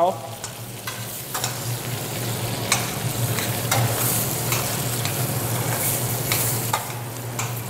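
Diced bacon frying in a stainless steel saucepan, sizzling steadily as it gives off steam, while a metal spoon stirs it with scattered clicks and scrapes against the pan.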